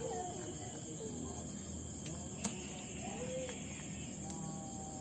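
Night chorus of crickets, a steady high trill, with faint curving calls in the background and a single sharp click about two and a half seconds in.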